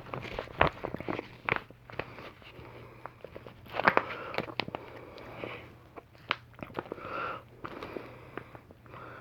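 A fork stirring tuna, rice and beans in a flexible foil pouch: scattered sharp clicks and brief crinkling of the pouch, over a faint steady hum.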